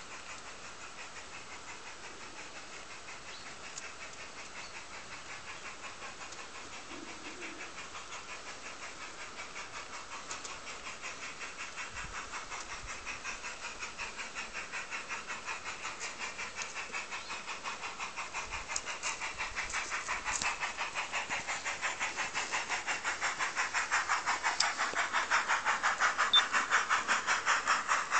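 Garden-scale model steam train running along the track toward the listener: a fast, even beat that grows steadily louder as it approaches.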